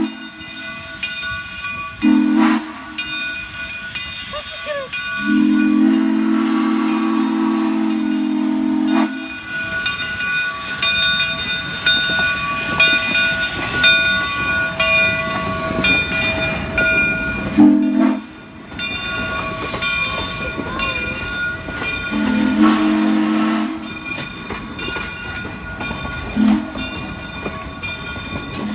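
Southern Railway No. 401 steam locomotive blowing its whistle in several blasts, the longest lasting about four seconds, with a bell ringing steadily behind it. Midway the locomotive passes close by with a loud hiss of steam and rolling wheels, followed by the passenger coaches.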